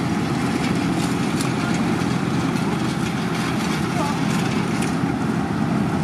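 Heavy road-construction machinery with its diesel engine running steadily at an even pitch, a constant low rumble with faint scattered ticks over it.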